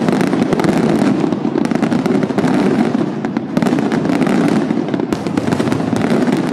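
Fireworks display going off in rapid succession: a loud, continuous barrage of bursts and crackles with no pause.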